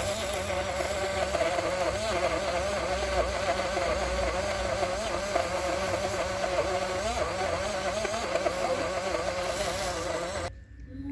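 Small portable blender's electric motor running with a whine that wavers up and down in pitch, then switched off abruptly near the end.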